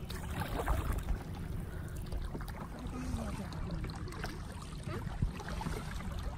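A kayak being paddled on calm water: paddle blades dipping and splashing, water trickling off them. Low wind rumble sits on the microphone underneath.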